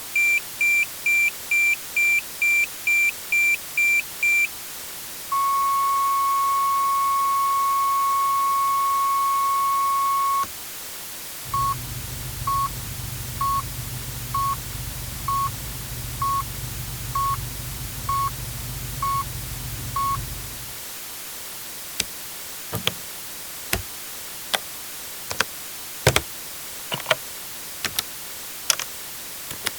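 Electronic vehicle warning beeps: a fast run of high beeps, then a steady tone of about five seconds, then slow beeps about once a second over a low hum. From about two-thirds of the way in, they give way to single sharp clicks of vehicle switches.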